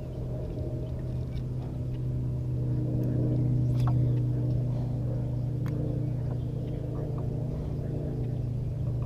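A boat motor running steadily with a low hum, growing a little louder about four seconds in, with a few faint clicks over it.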